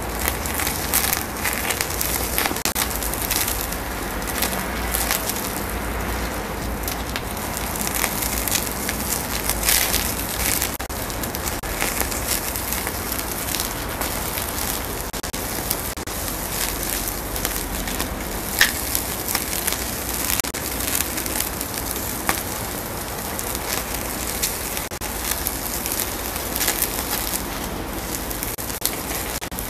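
Open fire flaring under a grill grate of meat (animal hearts): a steady crackling hiss with frequent sharp pops, over a low rumble.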